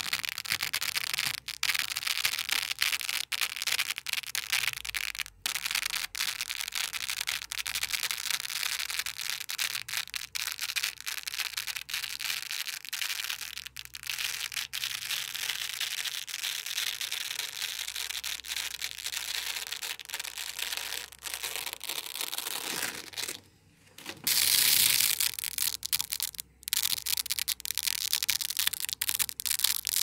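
Black loop tape being peeled off a striped black, blue and green nano hook-and-loop (Velcro) base: a long, continuous crackling rip. It breaks off briefly a few times, stops for about a second roughly three quarters of the way through, then starts again louder.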